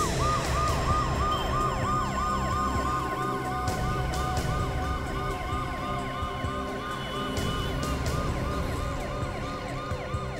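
Ambulance siren sounding in a rapid rise-and-fall, about three cycles a second, over the low rumble of the moving ambulance.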